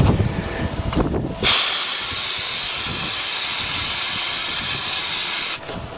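Aerosol can of starting fluid spraying in one steady hiss for about four seconds, starting about one and a half seconds in and cutting off sharply. It primes an engine that cranks but will not start.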